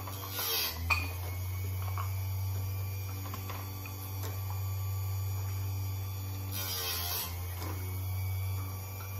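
Chicago Electric electric chainsaw-chain sharpener running with a steady motor hum, its grinding wheel brought down onto a cutter tooth twice, about half a second in and again about seven seconds in, each pass a short hiss of grinding. A sharp click comes just after the first pass.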